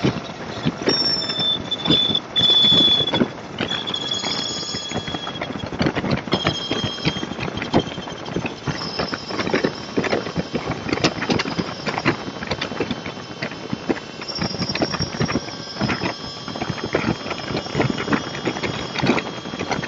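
Riding noise of a motorcycle at freeway speed picked up by a bike-mounted camera: a steady run of rapid rattling clicks with thin high-pitched squeals that come and go.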